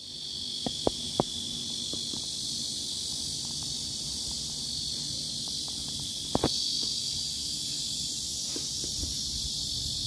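A steady, high-pitched chorus of cicadas buzzing without a break. A few sharp taps come about a second in and again just past the middle.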